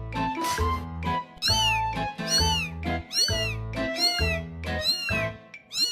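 Cat meows, each rising then falling in pitch, repeated about once a second in time with a music track that has a steady bass beat.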